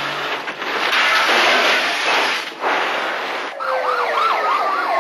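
Loud rushing car noise, broken by sharp cuts a few times. About three and a half seconds in, a police car siren starts: a fast warble of about four sweeps a second over a steadier tone whose pitch slides slowly down.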